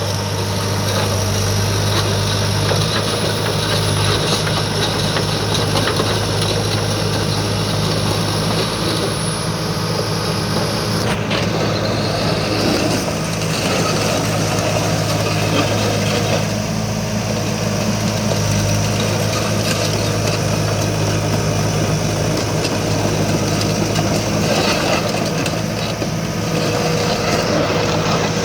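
Komatsu D37PX bulldozer's diesel engine running steadily at a low, even speed.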